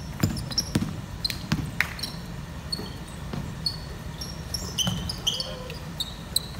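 Basketball bouncing on a wooden gym floor during play, with sneakers squeaking on the court; the squeaks grow more frequent in the second half.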